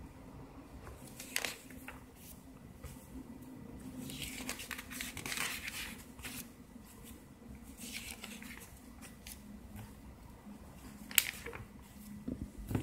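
Glossy paper catalogue pages being turned by hand: rustling paper, with a sharp page snap about a second in and a louder one near the end.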